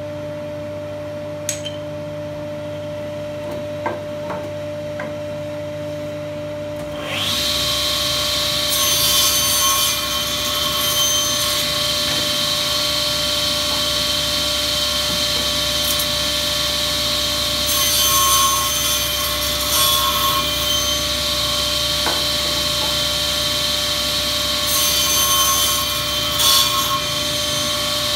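Sliding-table panel saw: a steady machine hum, then the saw starts up with a rising whine about seven seconds in and runs loudly. Its blade cuts through stacked softwood boards three times, each cut a louder rough stretch over the running motor.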